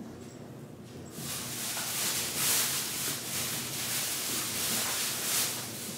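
Rustling of a shopping bag being handled. It starts about a second in and goes on in uneven surges.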